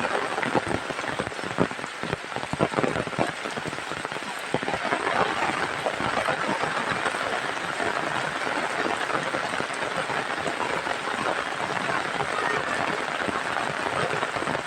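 Heavy rain falling, with many separate drop strikes standing out in the first few seconds, then settling into a steady, dense hiss.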